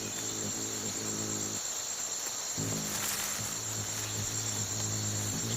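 Steady high-pitched chorus of rainforest insects, with a low pulsing hum beneath it that drops out for about a second near two seconds in.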